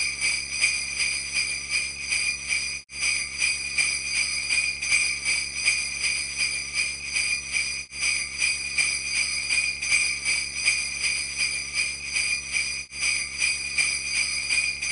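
Sleigh bells jingling in a steady, even beat. It is a looped track with a brief drop-out about every five seconds where the loop restarts.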